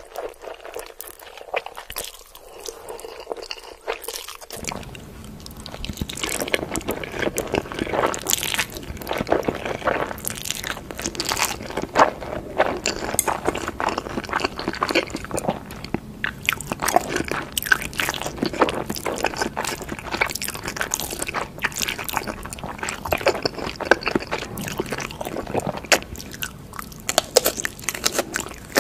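Eating sounds of black bean noodles and sauced fried chicken: crunching bites and wet chewing, one after another, becoming denser about four seconds in.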